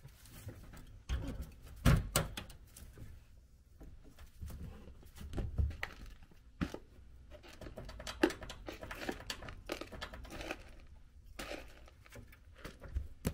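Guinea pig pulling hay from a hay rack and chewing it, with dry hay rustling and crinkling and scattered small clicks. There is a sharp knock about two seconds in.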